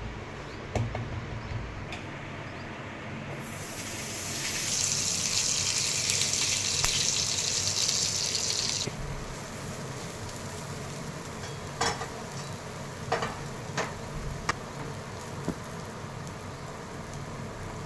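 Butter sizzling on a hot tawa (flat griddle): a loud, even hiss lasting about five seconds that cuts off suddenly. A few light clicks and knocks follow later.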